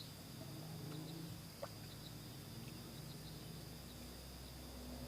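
Faint steady insect chirring, like crickets, with scattered small clicks and one sharp knock about a second and a half in.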